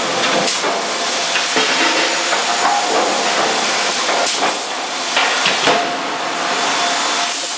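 CFM C88K CNC fully hydraulic die forging hammer striking several blows at uneven intervals, over a steady loud hiss.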